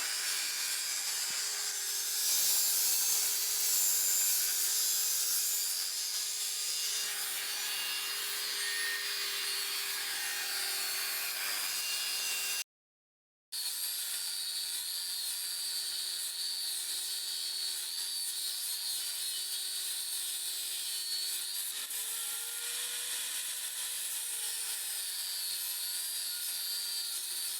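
Power tool cutting through a metal bar: a continuous high hiss over a steady motor whine, which rises briefly in pitch about two-thirds of the way through. The sound cuts out for under a second near the middle.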